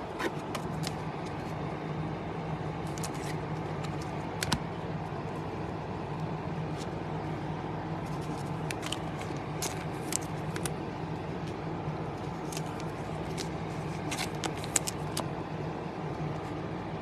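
Topps Chrome baseball cards handled and flipped through, their edges giving scattered light clicks and taps over a steady low background hum.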